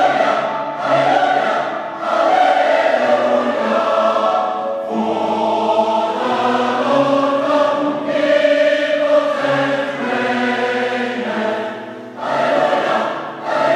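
Large mixed choir singing in sustained full chords, accompanied by a brass band. The phrases are long, with a brief break about twelve seconds in.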